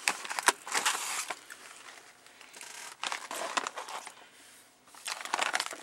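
Plastic snack packaging crinkling and rustling as it is handled, in a few irregular spells.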